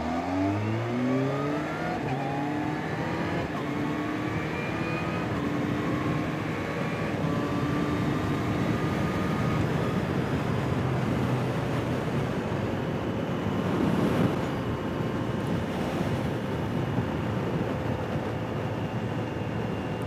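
Kawasaki Z H2 SE's supercharged inline-four accelerating out of a turn, its pitch climbing in several rising pulls as it shifts up through the gears, then settling into a steady cruise under the rush of wind on the helmet-mounted microphone. A short swell of rushing noise about fourteen seconds in.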